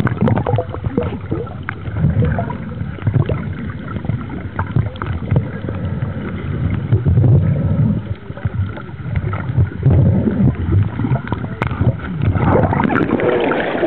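Muffled underwater noise picked up by a submerged camera on a coral reef: a low rumbling that swells and fades every couple of seconds as water moves, with scattered small clicks throughout.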